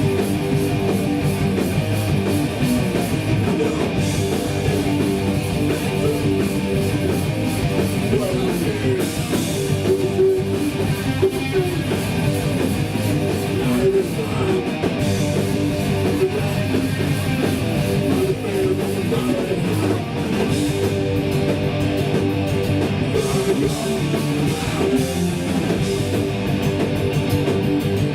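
Live hardcore punk band playing: distorted electric guitars over bass and drums, dense and loud.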